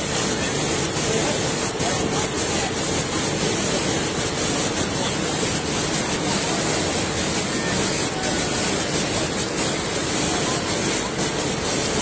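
Waterfall in full spate, its swollen, muddy flow pouring down a rock face and crashing into the pool below in a steady, unbroken rush.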